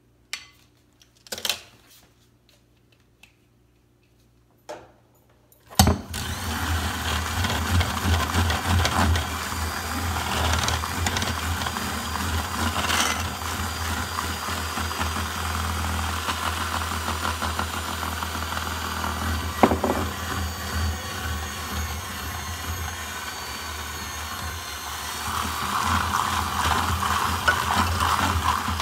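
KitchenAid electric hand mixer switched on about six seconds in and running steadily with its beaters in cake batter, louder near the end. Before it starts, a few light clinks of a measuring spoon against a glass bowl.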